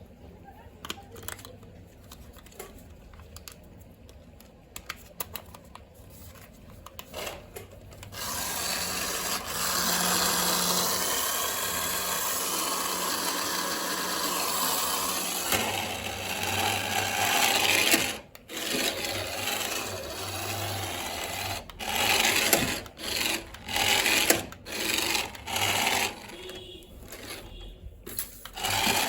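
Toy RC car's small electric drive motor and wheels running. After a few light clicks and taps, the motor starts about eight seconds in and runs steadily for about ten seconds, then goes in short stop-start bursts of about a second each.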